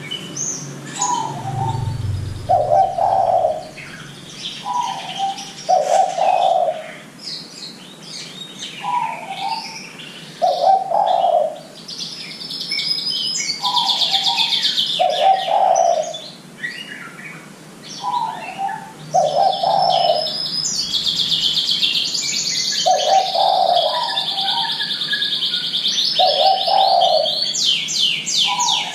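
Spotted dove (derkuku) cooing a repeated two-note phrase every few seconds: a short higher coo, then a longer lower one. Small songbirds chirp and trill high above it, busiest in the second half.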